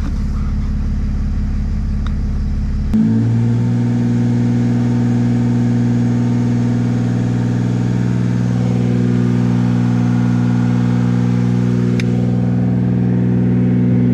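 Mercedes OM642 3.0 V6 diesel running with its catalytic converter removed, the exhaust left open behind the turbo, during an exhaust back-pressure test. About three seconds in the engine note rises a little and then holds steady.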